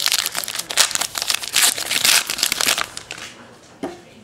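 Crinkling of a trading-card pack's wrapper being handled and crumpled, a dense crackling that lasts about three seconds and then eases off.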